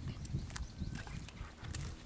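Footsteps on a walk: light, uneven clicks and crunches of steps over a low rumble.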